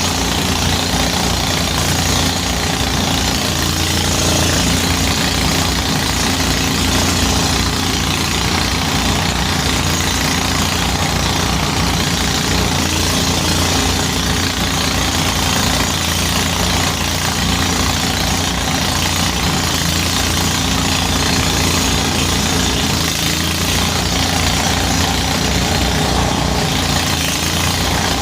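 Engine of a motorised rice threshing machine running steadily, with an even low pulse under a constant rushing noise.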